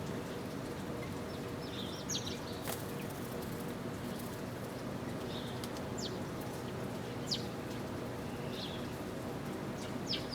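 Birds chirping: short, sharp chirps every second or two, with a sharp click about a third of the way in, over a steady background hum.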